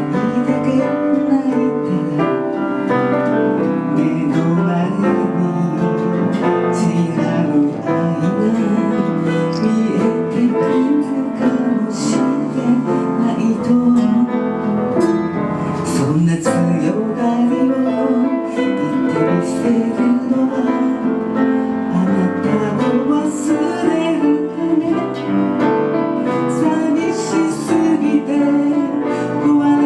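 Music from a slow ballad: piano and guitar accompaniment, with a singing voice over it.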